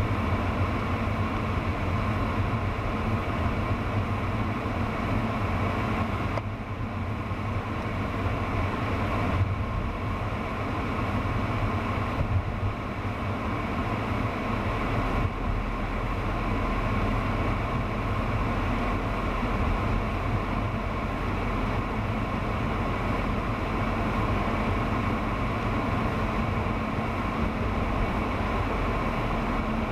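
Steady road and engine noise inside a moving car, with a constant low hum under it.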